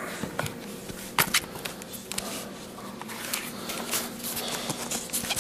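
Handling noises of a Norton tri-stone oilstone sharpener in its black case being moved about on a wooden table: scattered clicks and knocks, the loudest about a second in, over a faint steady hum.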